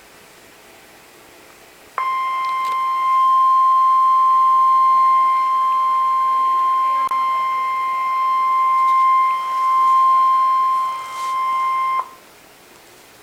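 NOAA Weather Radio warning alarm tone: a single steady 1050 Hz tone that sounds for about ten seconds, starting about two seconds in and cutting off sharply. Faint radio hiss is heard before and after it. The tone signals that a weather warning broadcast follows.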